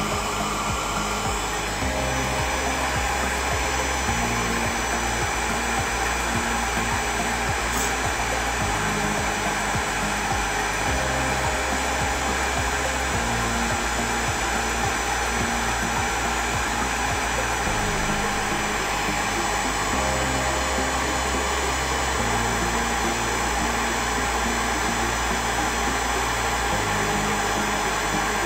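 Hot-air rework station blowing a steady hiss of hot air onto a circuit-board charging port to melt its solder for removal. Background music plays under it.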